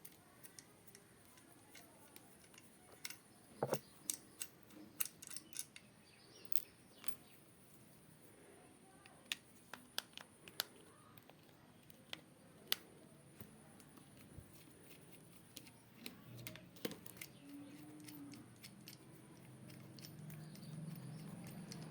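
Faint scattered clicks and ticks of a screwdriver and small metal parts being handled as screws are undone on a wall fan's motor housing.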